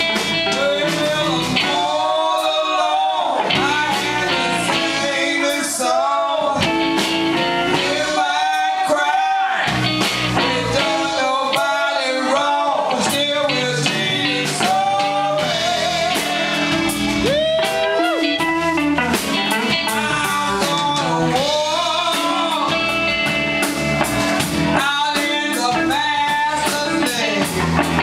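Live blues band playing: two women's voices singing into microphones over electric guitars, bass and drums, loud and steady.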